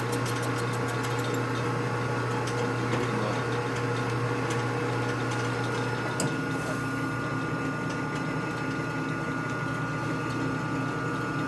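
Machine tool running steadily during machining, a constant hum with a hiss over it, and a single faint click about six seconds in.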